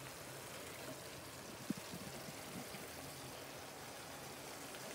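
Vegetable and tomato puree simmering and sizzling faintly in a pan over a gas flame turned up high, a steady hiss. A few soft knocks of a wooden spatula against the pan come about two seconds in, as it is stirred.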